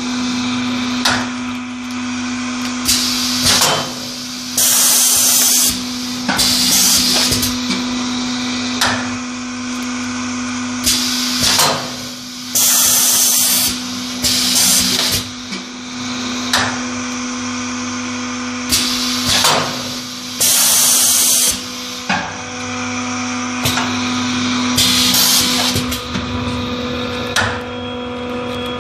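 Semi-automatic paper baking mold (paper loaf pan) forming machine cycling: a steady hum runs under repeated hisses of compressed air, which vent from its pneumatic press every few seconds. Some hisses last about a second, and short knocks come from the press strokes.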